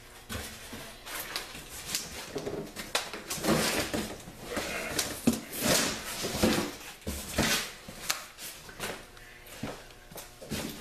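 Cardboard box and packing being handled and pulled around: irregular rustling and scraping with scattered knocks and clicks.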